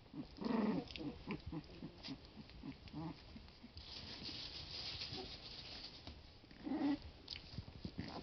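Litter of 20-day-old Boston terrier–Labrador mix puppies growling at play as they wrestle, with two louder little growls, one about half a second in and one near the end. A soft hiss of rustling runs for a couple of seconds in the middle.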